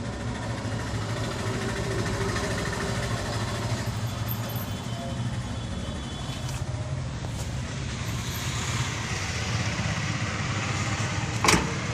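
A vehicle engine running steadily, with a single sharp knock near the end.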